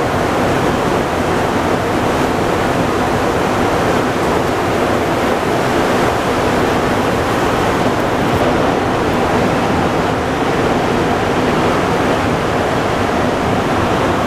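Steady, loud running noise of a Montreal Metro MR-73 rubber-tyred subway train, heard from inside the car as it travels underground.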